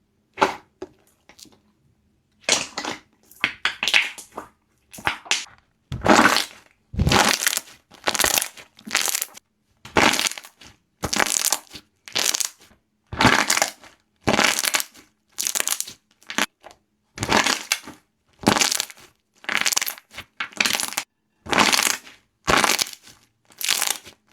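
Slime being pressed and squished, each press giving a short crackly burst of popping and squelching. A few scattered clicks come first, then the presses settle into an even rhythm of roughly one every second and a bit.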